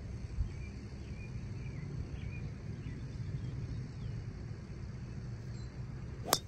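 Outdoor ambience: a steady low rumble with faint bird chirps early on. A single sharp crack comes near the end.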